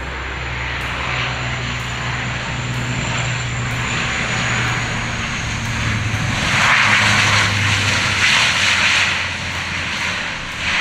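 Bombardier DHC-8 Q400 turboprop coming in to land, its propellers giving a steady low drone under a thin high turbine whine. A broad rush swells about six and a half seconds in as the plane passes, then eases.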